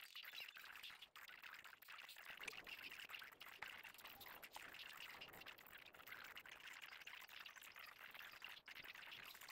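Near silence: faint steady hiss of room tone with a few light clicks.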